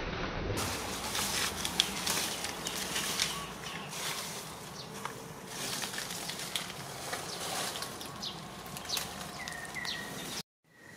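Outdoor woodland ambience: rustling of leaves and branches with scattered small clicks and snaps, and two short high chirps near the end.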